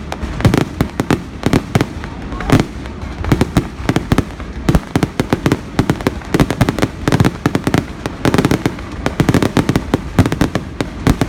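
Fireworks display: a rapid, irregular barrage of shell bursts and crackling reports, several bangs a second without a break.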